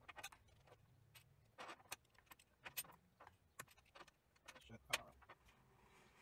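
Faint, irregular metallic clicks and taps of the small steel rods, clamp blocks and screws of a dial indicator holder being handled and fitted together, with a louder knock about five seconds in as the holder is laid down on a steel bench.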